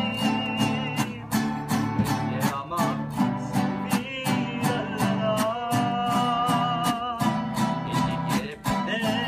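Mariachi band playing live: guitars and vihuela strummed in a steady rhythm of about three strokes a second, under a melody of held notes with vibrato from violins and a male singer.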